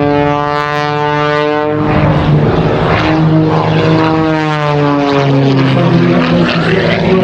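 MXS-RH aerobatic monoplane's piston engine and propeller running at high power during an aerobatic display. The note holds steady, shifts about two seconds in, then falls in pitch through the second half.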